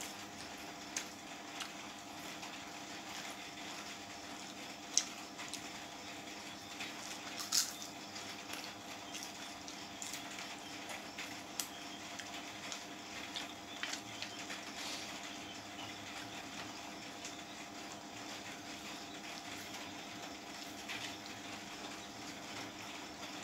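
A person eating rice and chicken curry by hand: fingers mixing wet rice on the plate and chewing, with a few sharp clicks, the loudest about 5 and 7.5 seconds in, over a steady faint hum.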